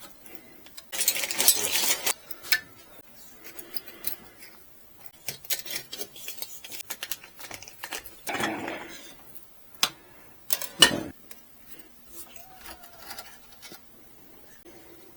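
Hands handling small parts and tie wraps during assembly: scattered clicks and rattles, two short rustling bursts about a second in and about eight seconds in, and a sharp click about eleven seconds in, the loudest sound.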